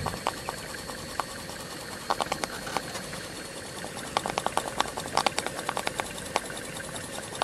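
Stuart Turner S50 model steam engine running smoothly on live steam: a steady hiss scattered with quick, irregular ticks and clicks.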